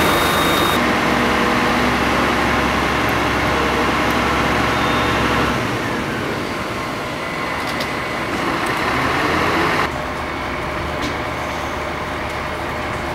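Heavy diesel engine of the fire apparatus running steadily, the engine-driven power for the aerial platform or pump. The sound changes abruptly about six and ten seconds in.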